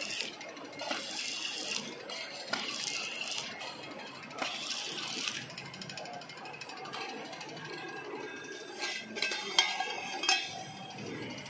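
Automatic wrap-around labeling machine running with tin cans: a steady machine bed, repeated bursts of hiss through the first half, and a few sharp metallic clinks near the end as cans knock against each other and the steel turntable rim.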